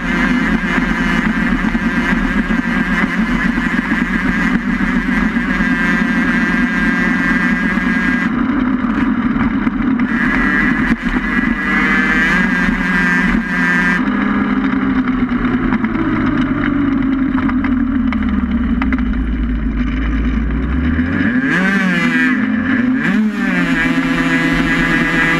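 Onboard sound of a low race vehicle travelling at speed on a paved road: a steady noise with a pitched whine that falls over several seconds past the middle, then wavers up and down near the end as the speed changes.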